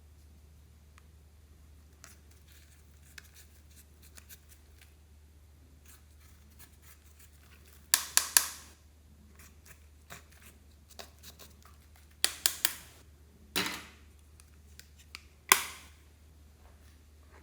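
Sharp snapping clicks in short bursts: three quick ones about eight seconds in, another three about four seconds later, then two single snaps near the end, with faint crackling handling noise between.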